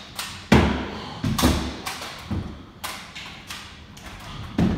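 Barbell weight plates knocking and clanking against bars and the wooden floor as they are taken off and loaded on. About seven sharp knocks, the loudest about half a second in.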